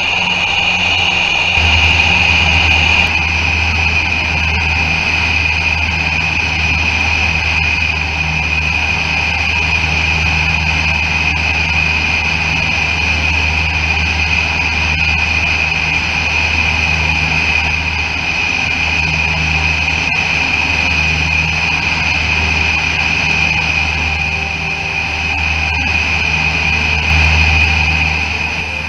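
Piper PA-23 Apache's twin piston engines and propellers droning steadily in flight, the low hum swelling and fading slowly.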